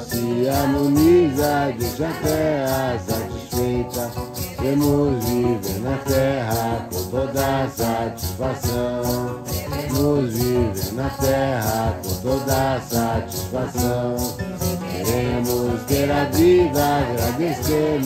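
A group singing a Santo Daime hymn together, accompanied by strummed acoustic guitars and maracas shaken on a steady, even beat.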